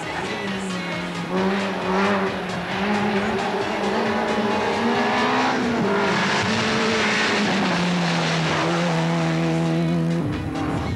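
A rally car's engine running hard at high revs as the car passes, with tyre noise. The engine note holds fairly level and drops a little about halfway through, while the noise swells loudest near the middle.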